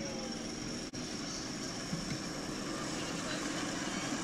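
Ride-on miniature railway locomotive hauling passenger cars past at low speed: a steady mechanical running sound with a faint high whine over it.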